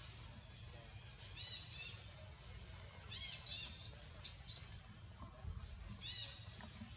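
Newborn long-tailed macaque giving short, high-pitched squeaks, several times in small groups, each one rising and falling. A few sharp clicks come in the middle.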